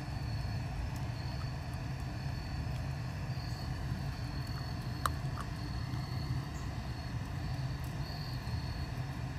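Outdoor background: a steady low rumble with faint on-and-off insect trilling, and a single sharp click about five seconds in.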